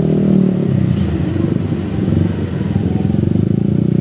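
Motorcycle engine running steadily while riding slowly, with a slight dip in loudness about two and a half seconds in.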